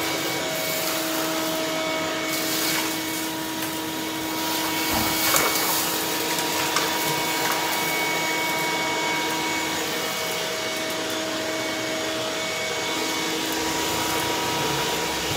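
Wet/dry shop vacuum running steadily, a constant rush of air with a steady motor whine. A few light knocks sound over it, and it cuts off abruptly at the end.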